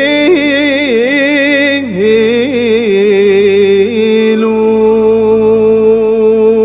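A solo voice singing an Islamic devotional nasheed in praise of the Prophet, drawing out a wordless, ornamented melodic line with vibrato, then holding one long note from about four seconds in.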